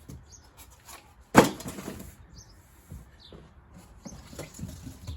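Parts and cardboard packaging being handled: scattered small clicks and rustles, with one sharp knock about a second and a half in.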